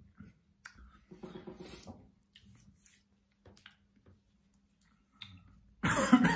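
Mouth sounds of a man eating a pickled ram's horn chilli pepper: small wet clicks and smacks of chewing, a short hummed sound about a second in, and a loud, hissy breath out near the end.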